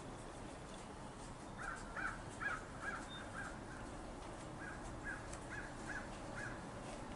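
A bird calling in two runs of short, repeated notes, about two or three a second, starting about one and a half seconds in, over a faint steady hiss.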